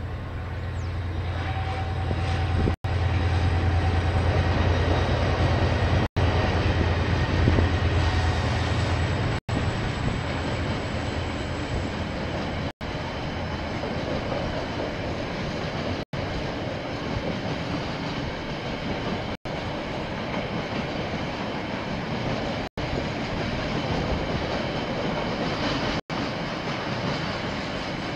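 KiwiRail diesel locomotive passing close by, its engine drone strongest over the first several seconds. The wagons follow, rolling past steadily with the clickety-clack of wheels over the rail joints. The recording cuts out for a split second about every three seconds.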